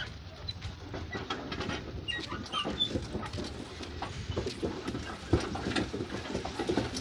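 Loaded camel-drawn cart rolling along a dirt track: irregular rattling and knocking from the metal frame and chain, with one sharp knock about five seconds in.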